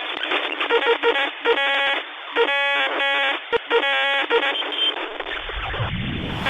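Tinny, radio-like electronic sound effect with buzzing tones in several short blocks, which gives way near the end to a whoosh.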